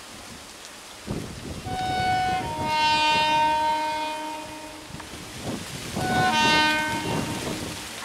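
Suburban EMU electric train approaching on the track and sounding its horn: one long multi-tone blast, then a shorter one, over the running rumble of the train, which starts about a second in.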